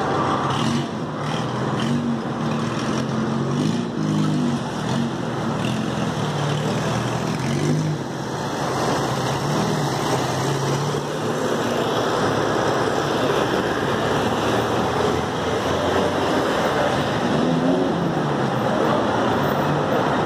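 City street traffic: engines of passing vehicles running over a steady wash of road noise.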